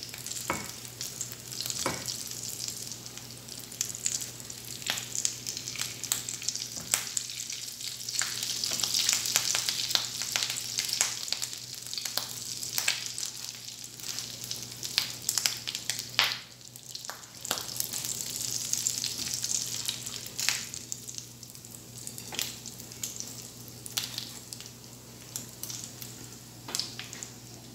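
Breadcrumb-coated potato, rice and egg kebabs deep-frying in hot oil in a frying pan over a medium flame: a steady sizzle with frequent sharp crackles.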